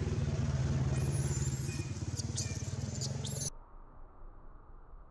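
A motor vehicle's engine running steadily with a low hum, with a few short, high squeaks over it; both cut off suddenly about three and a half seconds in, leaving only a faint background.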